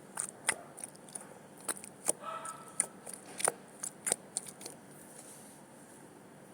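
Mini squishy toy with a shaving-foam-like filling being squeezed in the hand, giving a quick run of sharp crackling clicks for about four and a half seconds, then stopping.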